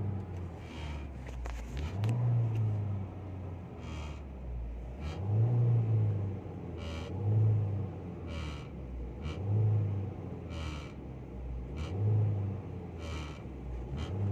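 Car engine revved in short blips about every two seconds, settling back to idle between them. Brief sharp clicks sound in the gaps between revs, in a check for a front right-hand noise that appears on acceleration.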